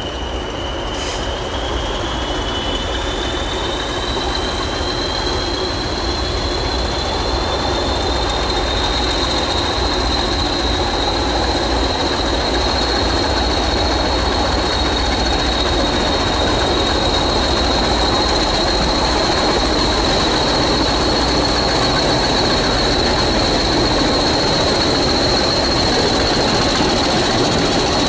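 A pair of English Electric Class 20 diesel locomotives under power, passing close with a train. Their turbochargers give a high whistle that rises in pitch over the first few seconds and then holds steady, over engine rumble that grows gradually louder.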